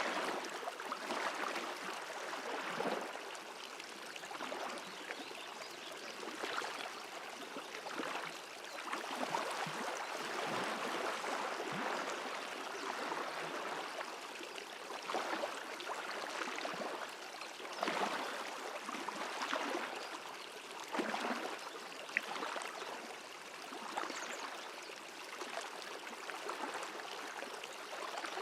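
A small stream of water flowing, a continuous rush that swells and eases a little every few seconds.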